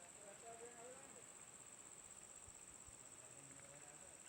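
Faint, steady, high-pitched insect chorus, with faint distant voices in the first second.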